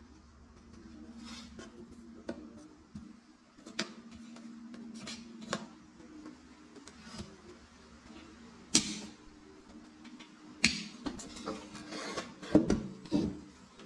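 Scattered sharp clicks and knocks of hands-on work, with a cluster of louder ones near the end, over a faint steady hum.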